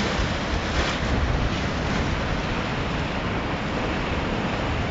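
Tiber in flood, its churning water rushing and splashing in waves: a steady, even noise, with wind buffeting the microphone.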